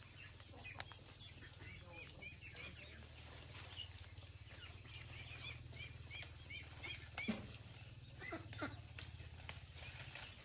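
A bird calling in a run of short, high chirps, about two or three a second, over a steady outdoor background with a low hum; a few faint knocks.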